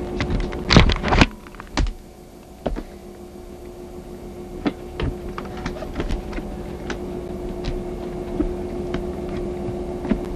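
Camcorder handling noise: a cluster of loud knocks and rubbing about a second in, then scattered single clicks over a steady hum.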